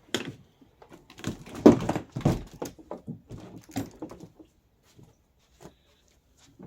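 Plastic body of a 12-volt Ford Ranger kids' ride-on car being turned upside down: a run of knocks and thuds over about four seconds, the loudest near two seconds in, then a few faint clicks.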